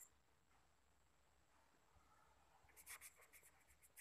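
Faint scratching of a pen writing on paper: a short run of strokes about three seconds in, otherwise near silence.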